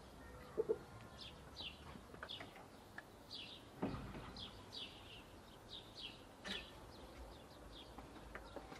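Birds chirping in a chicken yard: short, high chirps that slide downward, repeated every half second or so. A few light knocks come in between, the clearest about four seconds in.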